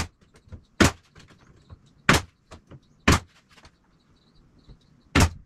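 Staple gun driving staples into wood: five sharp shots, about a second apart, with faint handling clicks between them.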